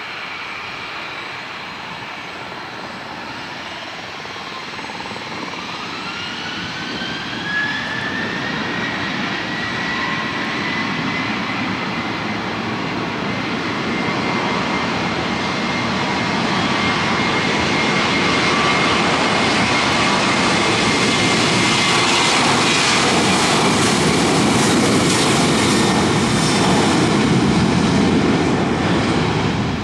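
Boeing 737 jet engines spooling up for the takeoff roll. A rising whine settles into a steady high whine, and a roar swells steadily as the jet accelerates down the runway, loudest near the end.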